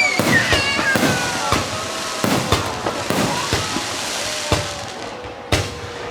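Fireworks going off: a string of sharp bangs and crackles, with high gliding tones in the first second or so, thinning out toward the end.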